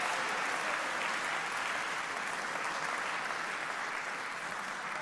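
Audience applauding steadily, slowly easing off.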